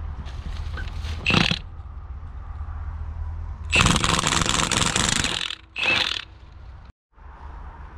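Milwaukee M18 FUEL 1/2-inch high-torque cordless impact wrench hammering on a rusted trailer wheel nut: a short burst, then a long burst of about a second and a half, then one more brief burst.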